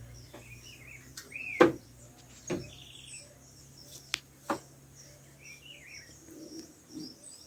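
Scattered bird chirps and short arching calls, broken by several sharp clicks or knocks, the loudest about one and a half seconds in, over a faint low steady hum.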